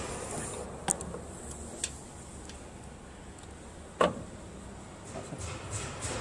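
A few small sharp clicks, then one louder knock about four seconds in, as the fibre laser cutting head is handled and set against its metal mounting plate. A low steady rumble sits underneath.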